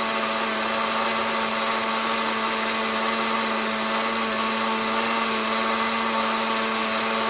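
Countertop blender motor running at a steady speed with a constant hum, beating a thick batter of eggs, yeast and flour for bread dough.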